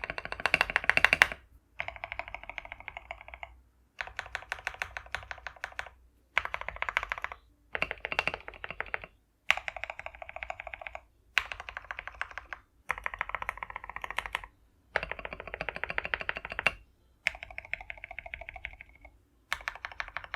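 Stabilized keys on a mechanical keyboard (spacebar and other long keys) pressed rapidly in short bursts of clicky, clacky strokes, about eleven bursts each a second or two long with brief pauses between, as a stabilizer sound test.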